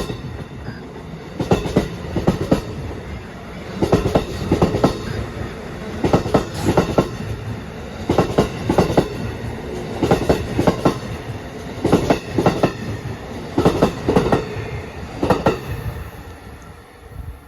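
Amtrak Regional passenger train's cars going by, their wheels clacking over rail joints in quick groups of clicks about every one and a half to two seconds over a steady rolling rumble. The clacking fades near the end as the last car passes.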